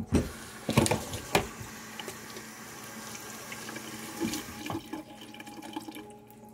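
Kitchen faucet running steadily, probably wetting a rag, after a few knocks and clatters in the first second and a half; the water fades near the end.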